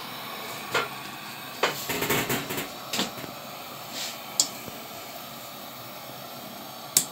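Petromax Rapid pressure lantern burning with a steady hiss, broken by several sharp clicks and knocks, a cluster of them about two seconds in and a louder one near the end.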